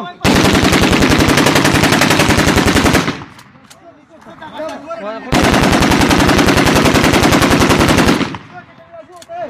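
Automatic rifle fired on full auto in two long bursts of about three seconds each, the shots in rapid, even succession, with a pause of about two seconds between the bursts. Men's voices are heard faintly in the pause.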